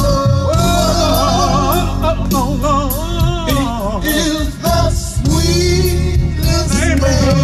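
Male gospel vocal group singing long, wavering melismatic runs over band accompaniment with drums.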